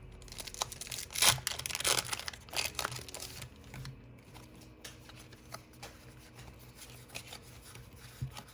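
Foil wrapper of a Pokémon booster pack crinkling and rustling as it is handled and the cards are pulled out, loudest in the first few seconds, followed by softer scattered clicks of cards being handled.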